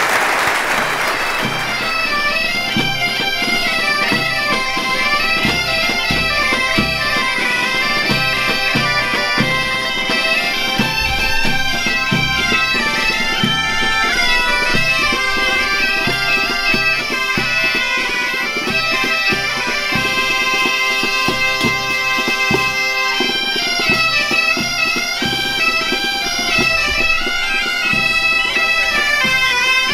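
Galician gaita (bagpipe) band playing a traditional tune over a steady drone, with a drum keeping the beat. Applause dies away in the first seconds.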